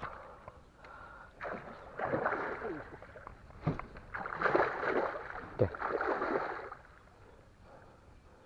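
Small boat being pulled by hand through a narrow, brush-choked swamp channel: irregular bursts of leaves and branches rustling and water sloshing, with a few short knocks, dying down near the end.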